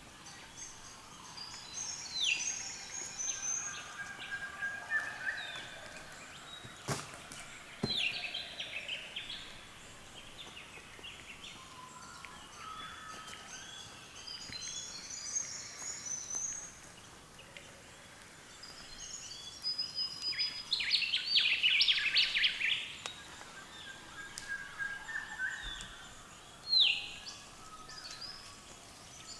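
Early-morning chorus of several wild birds calling and singing at once, with a sharp click about seven seconds in and a loud run of rapid chattering notes about two-thirds of the way through.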